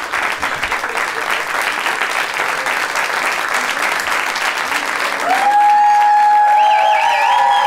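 Theatre audience applauding steadily. About five seconds in, louder held and warbling high tones join the clapping.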